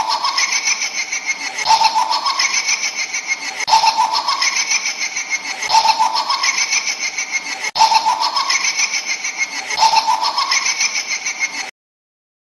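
Laughing sound effect played as a loop: the same two-second laugh repeats six times back to back, then cuts off suddenly.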